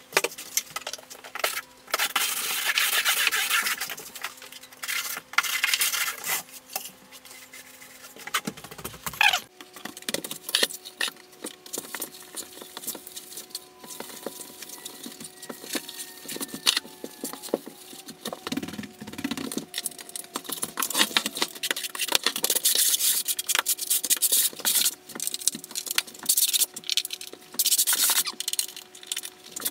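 Hand tools scrubbing and scraping on a plywood subfloor: a sponge wiping the plywood and thinset mortar being spread. Irregular rubbing and scratching with many scattered clicks and knocks.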